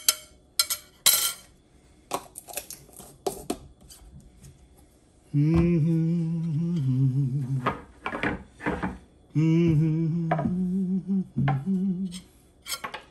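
A metal spoon and fork clinking against a plate, loudest in three sharp clinks right at the start, with more scattered clinks later. In between, a man hums a few held notes of a tune, twice, a couple of seconds each.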